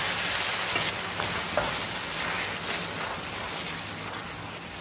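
Noodles and shredded cabbage sizzling as they stir-fry in a pan, a steady hiss that slowly eases, with a few faint clicks.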